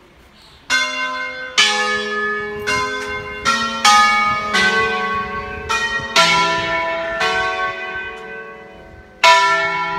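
Five church bells cast by De Poli in 1949, tuned to a slightly sharp E, rung by hand in a melodic concerto. About a dozen strokes on different notes begin about a second in, each ringing on and overlapping the next, with a short lull before one loud stroke near the end.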